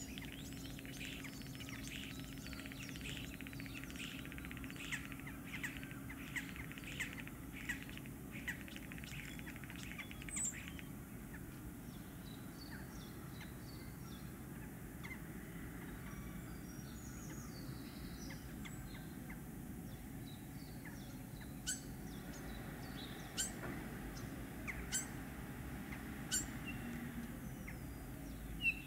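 Common starling (Sturnus vulgaris) singing its spring courtship song. For about the first ten seconds it gives a fast run of clicks, rattles and chatter, then goes quieter, then gives sharp clicks and whistles again near the end. A steady low background hum runs underneath.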